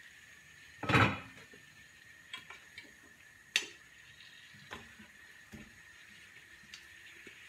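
Kitchen handling noises: one loud clatter about a second in, then scattered light knocks of a wooden spoon against a frying pan as pork ribs are stirred, over a faint steady high tone.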